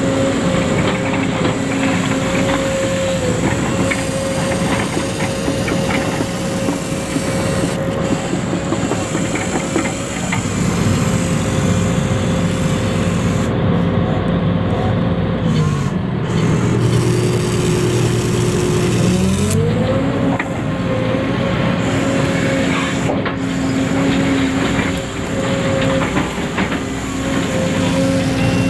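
Electric motor and gearbox of a radio-controlled model running with a steady whine over a gritty hiss. About halfway through the pitch slides down, holds lower for a few seconds, then climbs back up.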